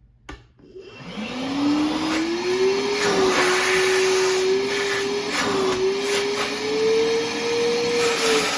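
Milwaukee M12 Fuel brushless cordless wet/dry vacuum running on its low speed: a click, then about a second in the motor spins up with a rising whine and runs on steadily, its pitch wavering slightly.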